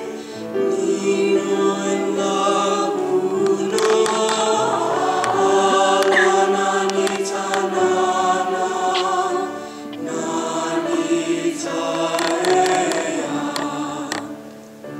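A large mixed high school choir singing held chords, with a solo voice amplified through a microphone. The singing eases briefly between phrases about ten seconds in and again near the end.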